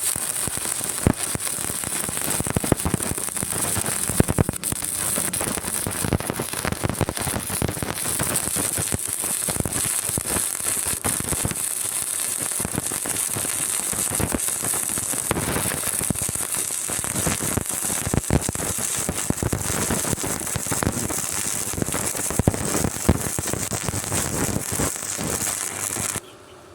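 Stick arc welding: a loud, continuous crackling sizzle with a bright hiss and frequent sharp pops. It starts abruptly and cuts off suddenly near the end as the arc is broken.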